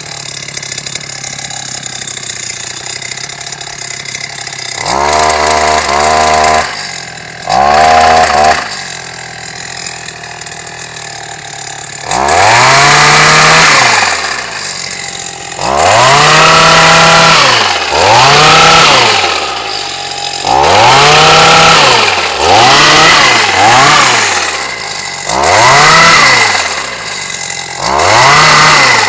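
Engine of a ZEG olive harvesting machine idling, then revved up and back down about nine times. Each rev rises and falls in pitch over a second or two, and the revs come closer together in the second half.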